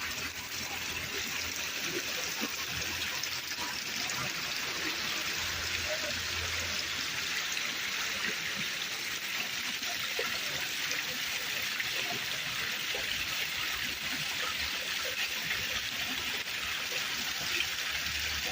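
Water falling and splashing steadily from a built landscape waterfall into its pool: an even, continuous rushing hiss.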